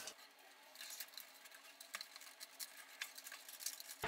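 Faint clicks and soft rustling as a plastic router and its cables are handled and pulled from under a desk.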